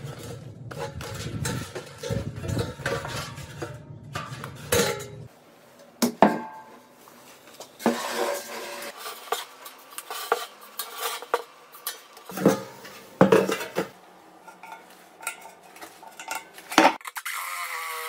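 Stainless-steel washing machine drum being handled and set down: repeated metallic clanks, knocks and rattles of thin perforated sheet metal. Near the end a drill with a step bit starts running.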